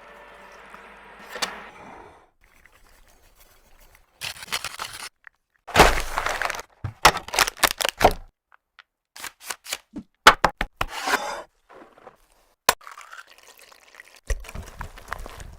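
Food being handled and prepared: a faint steady hiss at first, then a run of short scraping and rustling bursts and sharp knocks, with brief pauses between them.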